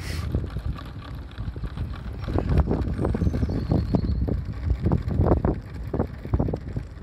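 Wind buffeting the microphone in irregular gusts, stronger from about two seconds in.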